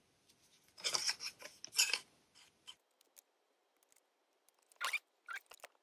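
Mechanical pencil scratching short marking lines onto the wood of a miniature door frame along a small try square: a cluster of quick strokes about a second in, and a few more near the end.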